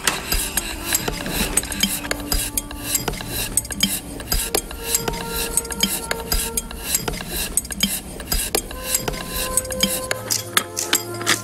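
Dense, rapid metallic clicking and clinking, with a few held ringing tones sounding over it.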